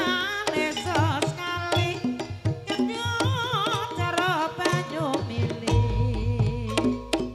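Javanese gamelan music accompanying an ebeg trance dance: kendang hand drums beating under pitched metallophones and a wavering melody line. A deep low note swells up about six seconds in.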